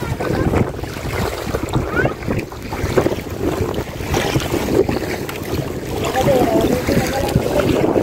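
Wind buffeting the microphone over choppy water slapping and splashing against a small boat, rising and falling in gusts.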